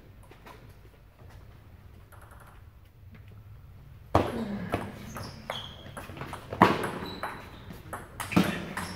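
Table tennis point: soft ticks of the ball being bounced before the serve, then about four seconds in a sudden loud serve and a rally of sharp clicks as the plastic ball strikes the paddles and the table, about one hit every half second to second, some with a brief ringing ping.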